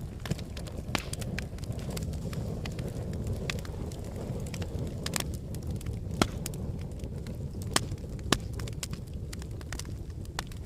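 Wood fire burning in a fireplace: a low, steady rumble of flames with irregular crackles and sharp pops of burning logs, a few pops standing out louder in the second half.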